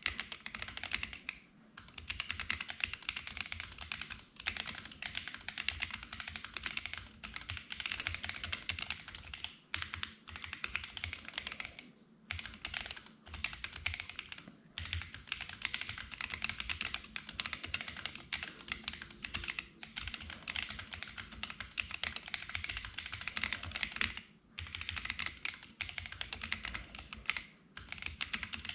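Continuous typing on a Sofle v2 split mechanical keyboard fitted with Gazzew U4T Boba tactile switches lubed with Krytox 205g0 and MT3 keycaps: rapid runs of keystrokes with brief pauses every few seconds.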